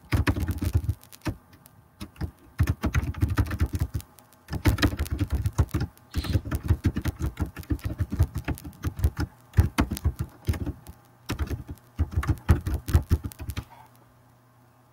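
Typing on a computer keyboard in quick bursts of keystrokes with short pauses between, stopping near the end.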